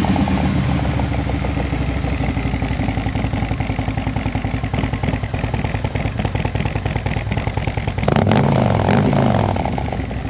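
A 2020 Harley-Davidson CVO's Milwaukee-Eight 117 V-twin with a full stage two engine upgrade, idling just after a start. About eight seconds in it revs up once and drops back to idle.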